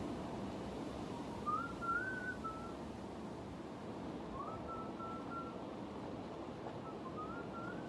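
A short whistled phrase, a rising glide followed by a few level notes, repeated three times about three seconds apart, over a steady background hiss.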